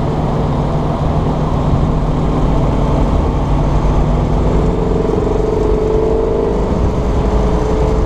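1959 Corvette C1's small-block V8 running steadily while driving with the top down, with wind rush over the open cockpit. The engine note rises slightly about halfway through.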